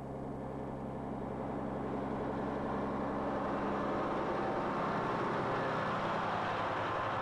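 A County four-wheel-drive tractor's diesel engine running steadily under load, growing a little louder over the first few seconds.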